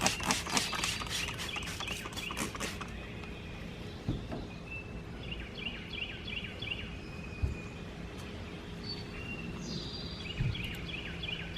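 Crackling rustle of a vinyl decal's backing paper being handled and peeled for the first few seconds, then a bird chirping in short runs of quick notes.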